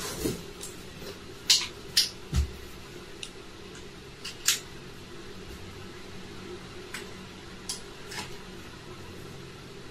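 Scattered clicks and knocks of plastic plugs being pushed into a wall-mounted power strip and cords being handled, over a steady low hum.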